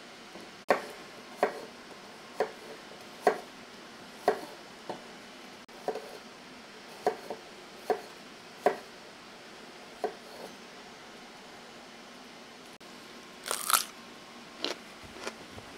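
A knife cutting on a cutting board: about a dozen sharp strokes, roughly one a second, stopping after about ten seconds, then a brief louder noise a couple of seconds before the end.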